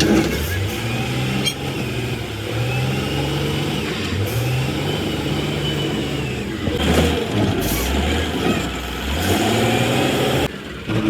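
Excavator's diesel engine running with its revs repeatedly rising and falling, alongside a higher whine that also rises and falls. The sound breaks off abruptly near the end.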